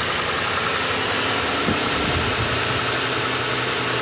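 2005 Ford Crown Victoria Police Interceptor's 4.6-litre V8 idling steadily, kept running on fuel poured directly into the intake because the fuel pump is bad. A single short knock comes a little under halfway through.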